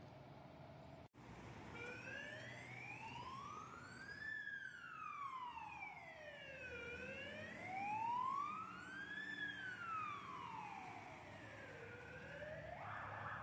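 Fire engine's electronic siren on a slow wail, rising and falling about once every five seconds, switching near the end to a fast yelp, with the truck's engine rumbling underneath.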